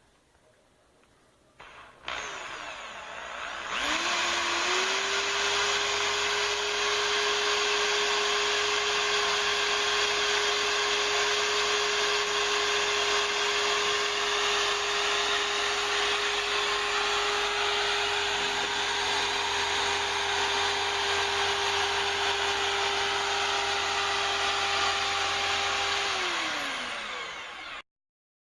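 Electric drill boring holes through a wooden wheel. The motor starts about two seconds in, spins up to a steady whine, and winds down near the end.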